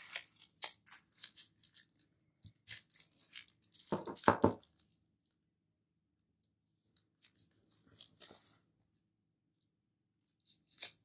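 Paper stickers being peeled off their backing sheet and handled: short scattered rustles and crackles, loudest in a cluster about four seconds in, with a quiet spell just after.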